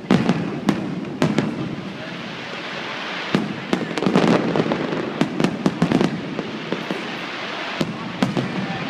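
Fireworks going off: an irregular run of sharp bangs and crackles, coming thickest about four to six seconds in.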